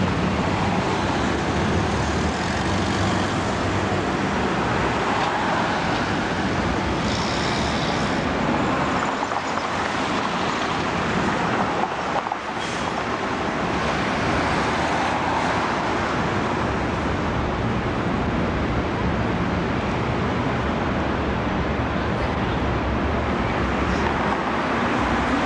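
Steady city street traffic noise from passing cars and buses, with a brief high-pitched sound about seven seconds in.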